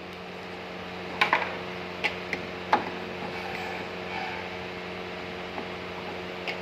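Volkswagen Polo exterior door handle being worked outward with a car key in it, giving a few sharp plastic-and-metal clicks and knocks, a cluster at about one second and single ones near two seconds and just under three seconds, over a steady low hum.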